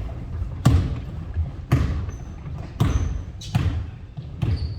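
Basketballs bouncing on a hardwood gym floor: about five sharp bounces at irregular spacing, with a few short high squeaks between them.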